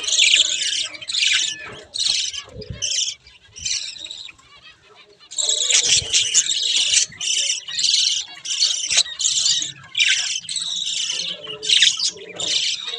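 A flock of budgerigars chirping and chattering in rapid, overlapping bursts, with a short lull a few seconds in before the chatter picks up again.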